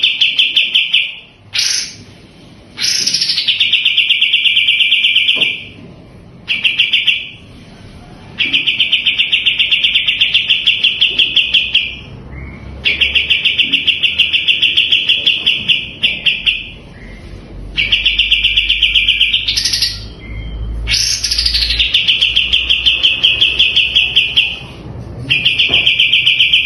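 Kapas tembak songbird singing in long bursts of rapid, evenly repeated notes lasting a few seconds each, several opening with a quick upward sweep, with short pauses between bursts.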